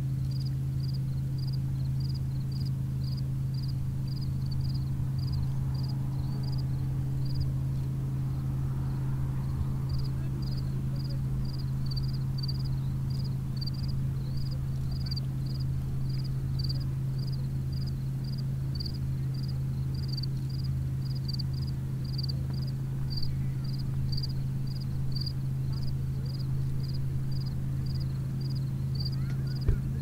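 Outdoor evening ambience: a steady low hum runs throughout, and over it a creature gives high, short chirps at an even pace of about two a second. The chirping pauses briefly about eight seconds in, and a single click comes near the end.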